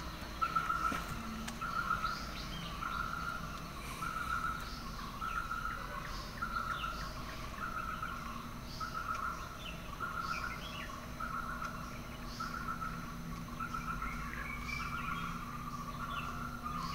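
Outdoor forest ambience: a short trilled call repeats a little more than once a second over a low steady hum, with scattered bird chirps.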